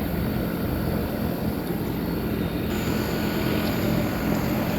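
Trane central air conditioner condensing unit running steadily: the outdoor fan's whoosh over the low hum of its reciprocating compressor.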